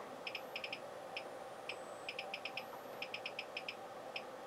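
Faint, rapid ticks in short irregular clusters of a few at a time, over a steady low hum.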